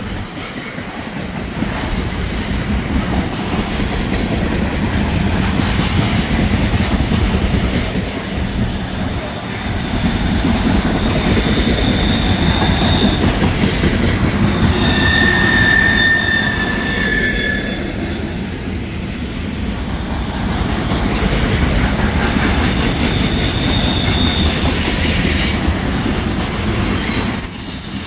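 Freight cars loaded with trash containers rolling past: a steady rumble and clatter of steel wheels on the rails. Brief high-pitched wheel squeals come and go, around the middle and again near the end.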